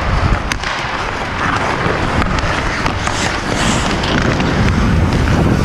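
Hockey skate blades scraping and carving on the ice during fast skating, with wind rushing over the helmet-mounted camera's microphone and a couple of sharp clacks.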